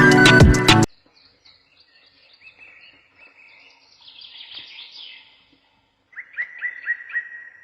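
Background music cuts off about a second in, then birds chirp faintly, with a louder rapid run of repeated chirps near the end.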